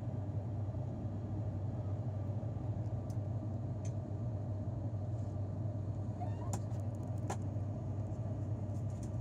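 Cabin noise of an ATR 72 turboprop in the climb: a steady low drone from the propellers and engines, with a few faint clicks partway through.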